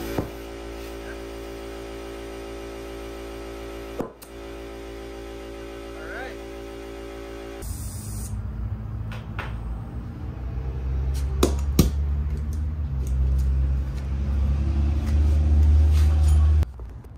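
Air compressor motor running with a steady, even hum and a single click a few seconds in, feeding the hose that inflates a tubeless aircraft bush tire. It is followed by a louder low rumble that builds up, with a few sharp clicks.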